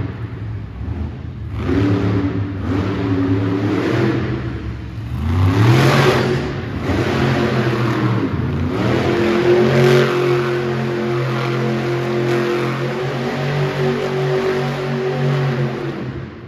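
Monster truck engine revving hard in short bursts, with a sharp climb in pitch about five seconds in. It then holds high revs for several seconds and drops off at the end.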